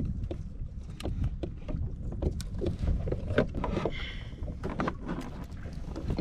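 Water lapping against a fishing kayak's hull, with scattered small clicks and knocks as fishing tackle and a fish-grip tool are handled aboard.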